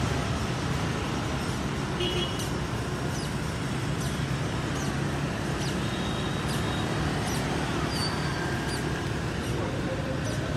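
Steady street traffic noise from a stream of passing motor scooters and motorbikes. From about two seconds in, small birds chirp with short, high calls over it.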